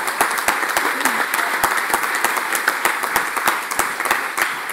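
An audience applauding, many hands clapping steadily, welcoming the next speaker to the podium.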